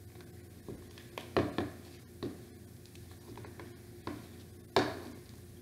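A utensil stirring slime in a plastic bowl, with scattered sharp taps and knocks against the bowl: a cluster about a second and a half in and the loudest near the end.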